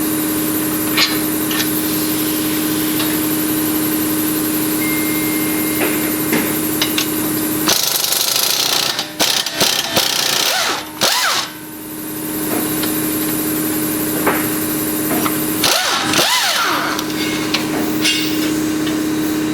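A 3/8-inch impact gun hammering steadily as it loosens the bottom strut-to-spindle bolts. It runs in long stretches and stops twice, about eight and sixteen seconds in, with clicks and brief rising and falling whirs in those breaks.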